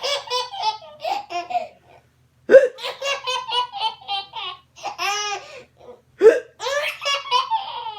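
Baby hiccuping and laughing: two sharp hiccups, about two and a half and six seconds in, each set off a string of high-pitched giggling laughs.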